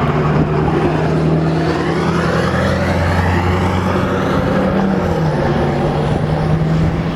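Drilling rig's diesel engines running with a steady low hum that steps down slightly in pitch about five seconds in. A rushing sound swells and fades over the first few seconds, like a vehicle going by.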